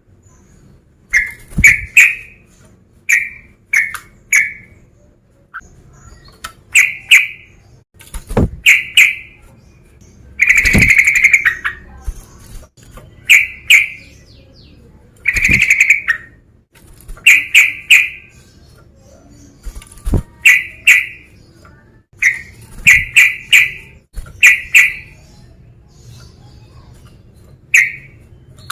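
Sooty-headed bulbul (trucukan) calling: short bright notes, mostly in clusters of two or three, repeated every second or two, with two longer chattering phrases about a third of the way and halfway in.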